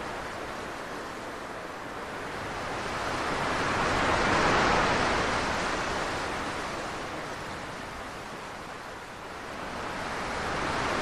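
Ocean surf: waves washing onto a beach, rising to a peak about halfway through, easing off, and swelling again near the end.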